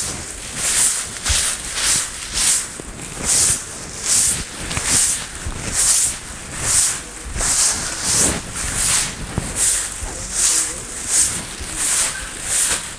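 A soft grass broom sweeping a concrete floor in brisk, even strokes, a swish about one and a half times a second.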